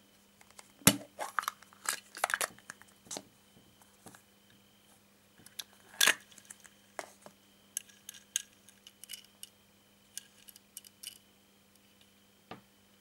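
A plastic surprise-egg capsule is handled and pulled apart, giving sharp plastic clicks and snaps. The loudest comes about a second in, a burst of clicks follows up to about three and a half seconds, and another loud snap comes about six seconds in. Light ticking and tapping follow as a small toy car is handled, over faint cricket chirping.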